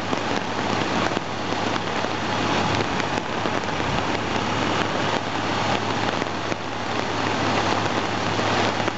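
Fast-flowing floodwater rushing and churning along a street and around a heavy truck's wheels, a steady dense wash of noise. Underneath it, a dump truck's engine runs with a low steady hum.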